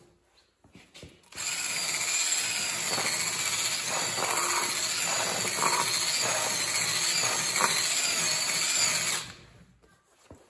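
Cordless drill spinning a wire brush against the steel plate of a mini bike torque converter, scrubbing it clean. It starts about a second and a half in, runs steadily with a high motor whine that wavers slightly, and stops a little before the end.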